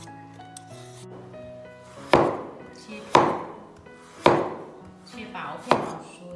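Kitchen knife chopping on a cutting board: four sharp chops about a second apart, starting about two seconds in, over background music.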